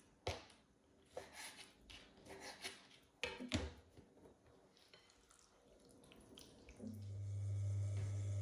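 A kitchen knife chopping through raw chicken liver, with several sharp knocks of the blade on a plastic cutting board in the first few seconds. About seven seconds in, a steady low hum starts up.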